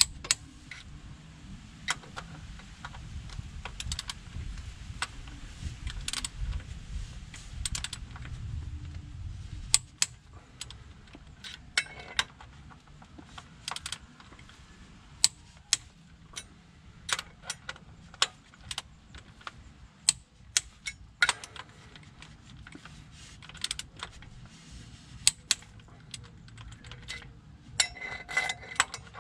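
Ratchet wrench clicking in short irregular runs as the flywheel bolts are worked, with sharp metal clicks and clinks, a quicker run of clicking near the end.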